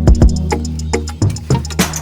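Background music: a bass line with a drum beat, steady hi-hat ticks and a cymbal crash near the end.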